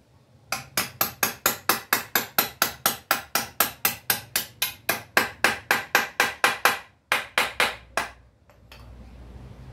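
Hammer striking the wooden frame of a bench in rapid, even blows, about four a second. A short break comes about seven seconds in, followed by four more blows.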